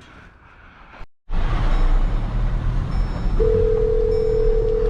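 Steady road and engine rumble inside a moving vehicle, with a phone's ringback tone for an outgoing call coming in about three seconds in. The tone is one steady two-second ring over the speaker.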